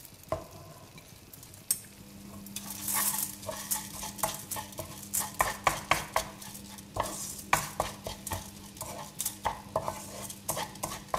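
Wooden spoon stirring raw carnaroli rice through onion and radicchio in a hot stone-coated frying pan: irregular scraping and clicking strokes against the pan, a couple a second from about two seconds in, over a light sizzle from the oil.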